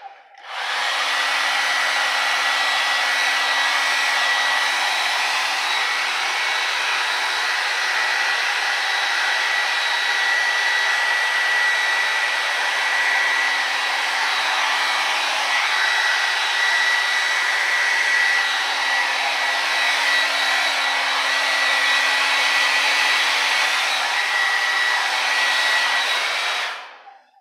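Handheld hair dryer running, a steady rush of blown air with a thin whine from its motor. It switches on just after the start and cuts off just before the end.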